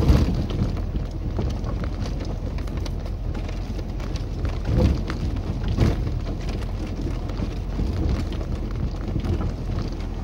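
Cabin noise of a Tofaş Kartal driving slowly over a rough dirt track: a steady low rumble of engine and tyres on gravel, with the body jolting and thumping over bumps, loudest at the start and again about five and six seconds in.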